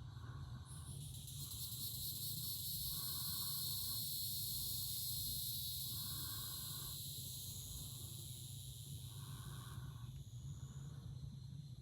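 Evening insect chorus: a dense, high-pitched steady trill that swells about a second in and eases off near the end. A lower call repeats in pulses about a second long, several times, over a low steady rumble.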